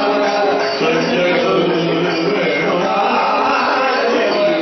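Men singing a Carnatic-style bhajan (devotional chant), lead voices on microphones with others joining in, continuous and at a steady level.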